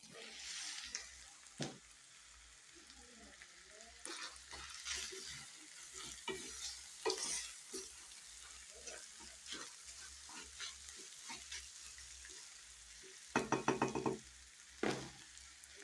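Minced meat, potato cubes and vegetables sizzling in oil in a stainless steel pan while a wooden spoon stirs and scrapes through them. A quick run of knocks comes near the end.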